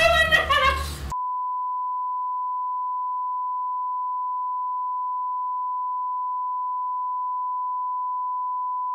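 A voice cuts off about a second in and a steady 1 kHz test tone begins, one unchanging pure pitch at an even level.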